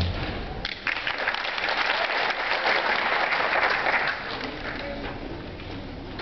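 Audience applauding a drill team's stage routine. The clapping breaks out about a second in, swells, and dies down about four seconds in.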